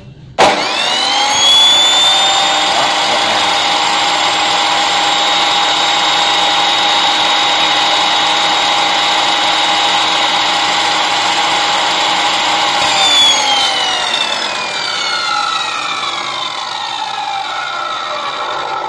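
Large 355 mm abrasive metal cut-off saw switched on: a sharp start and a rising whine as the motor spins up over about two seconds, then steady running. About 13 seconds in it is switched off and the whine falls away as the blade coasts down.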